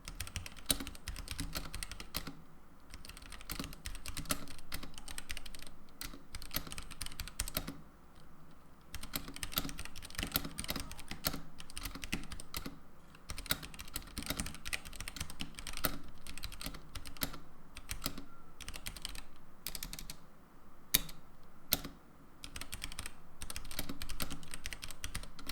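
Typing on a Womier K66 mechanical keyboard fitted with factory-lubed Gateron Red linear switches: a continuous run of key clicks, with a few louder single keystrokes near the end.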